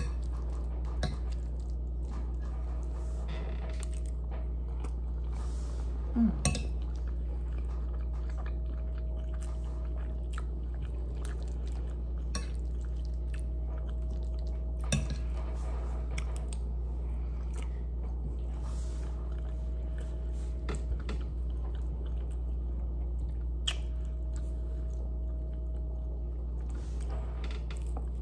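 Mouth sounds of eating chicken and rice: chewing, with a metal spoon clicking and scraping on a ceramic plate. A steady low hum runs underneath, and a short louder sound comes about six seconds in.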